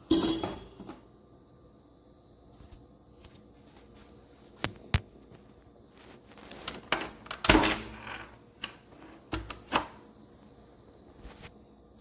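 Scattered knocks and clunks with a few sharp clicks from objects being handled and set down, over quiet room tone. The loudest knock comes about seven and a half seconds in.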